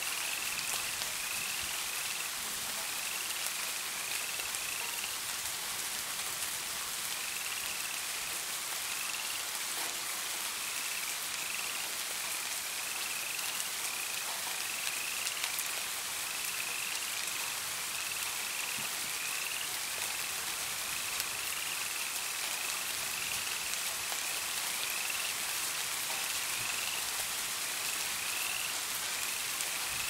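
Steady rain hiss with a frog calling over it: short rising chirps repeated in runs, with brief pauses between runs.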